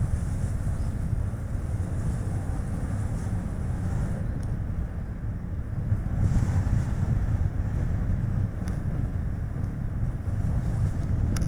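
Strong gusty wind buffeting the action camera's microphone over the steady tyre and road noise of a Chevrolet Spark light car driving. A few faint ticks come through.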